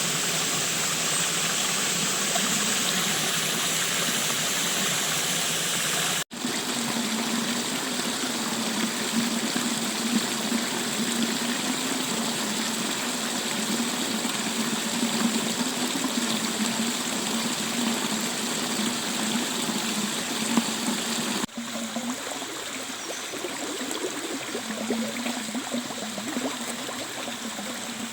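Stream water rushing steadily. The sound breaks off abruptly twice, about six seconds in and again about 21 seconds in, where the recording is cut.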